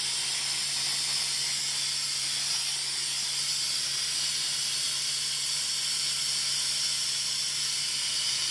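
Air-powered mini vac on a compressor air hose hissing steadily as it sucks engine oil out of the oil pan.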